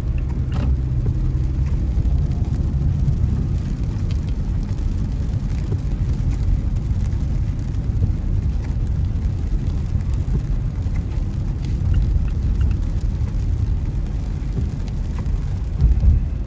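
Steady low rumble of a car and its tyres heard from inside the moving car's cabin, driving on rain-wet road, with a few faint scattered ticks.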